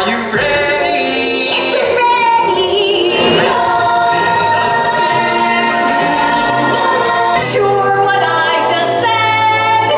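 Stage-musical song: cast and chorus singing sustained lines together over instrumental accompaniment.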